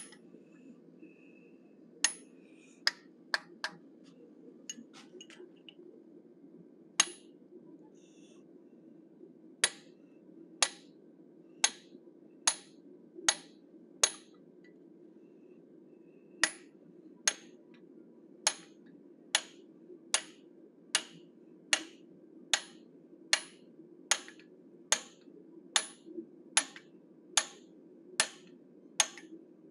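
Hammer blows on a 1/8-inch fuller held against a steel bear head, texturing the beard and sideburns: sharp metallic taps, a few scattered at first, then a steady run of about one every 0.8 seconds. A steady low hum runs underneath.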